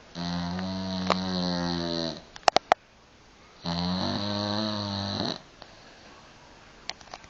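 Dog snoring loudly: two long snores of about two seconds each, each on a steady low pitch, the second beginning about three and a half seconds in. Between them come three sharp clicks, and a few fainter clicks come near the end.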